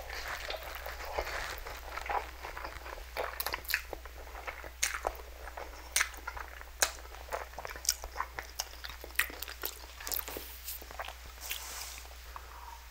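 Close-miked eating of spicy instant noodles: noodles slurped in and chewed, with many irregular sharp wet mouth clicks and smacks.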